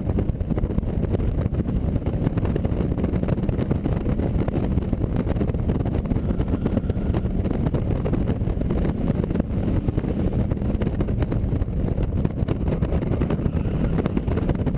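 AC Cobra Mk IV's V8 engine running steadily under way, heard from on board the open car, with wind noise on the microphone.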